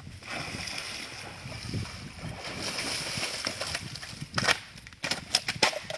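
Water splashing and sloshing, with a run of sharper, louder splashes near the end.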